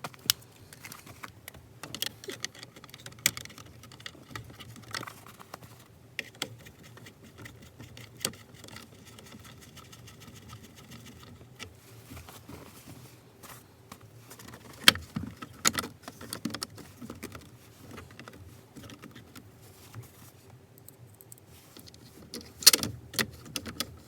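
Scattered clicks, taps and rattles of small metal and plastic parts being handled as the clock spring is fitted and its screws are driven back in on the steering column. There are louder knocks about 15 seconds in and again near the end.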